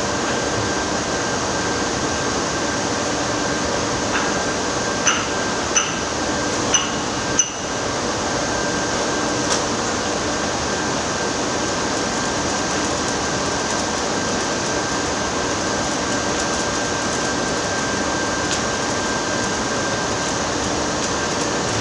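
Electric arc welding running steadily as weld is built up on a damaged vibrating-screen shaft, a continuous crackling hiss. A handful of brief sharp pops come about four to seven seconds in.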